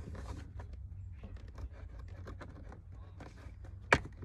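Plastic armrest console trim panel of a Toyota Camry being worked loose by hand, with a run of small plastic clicks, then one sharp snap near the end as its retaining clips pop free.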